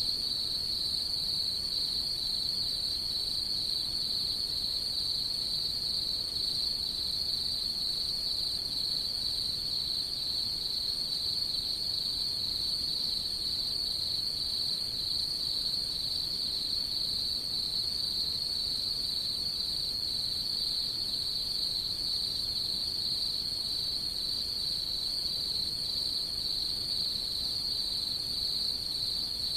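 Night insects singing in a steady, unbroken high-pitched chorus.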